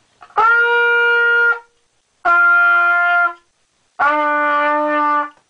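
B-flat trumpet playing three held notes, each about a second long with a short gap between them, each lower than the last: the arpeggio coming back down from its high C.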